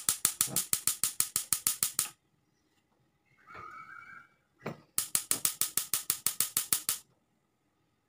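Gas stove's electric spark igniter clicking rapidly, about ten clicks a second, in two runs of about two seconds each as a burner is lit. Between the runs, a short metallic scrape and knock as a stovetop espresso pot is set on the grate.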